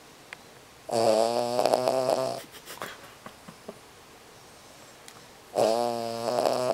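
Cavalier King Charles Spaniel snoring in its sleep: two loud, pitched snores, each lasting about a second and a half, the second coming a few seconds after the first.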